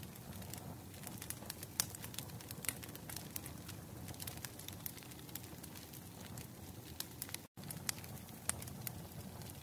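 Wood fire crackling: irregular sharp pops and snaps over a low steady rumble, with a very brief cut in the sound about seven and a half seconds in.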